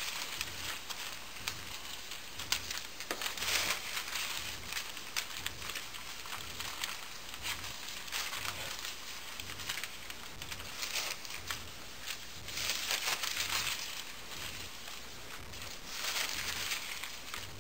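Paper dollar bills rustling and crinkling as handfuls are dropped onto a person lying on a carpet, in several bursts of a second or so.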